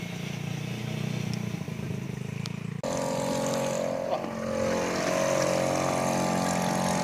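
Electric RC speedboat running on the water: a steady motor and propeller whine over water hiss. It jumps suddenly louder and closer about three seconds in.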